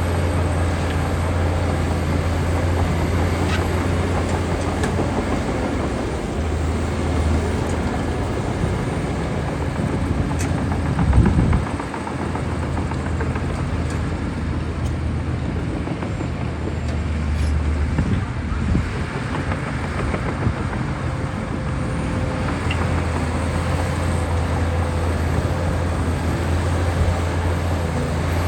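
Heavy diesel engine of a bulldozer running steadily at work, with a brief louder thud about eleven seconds in.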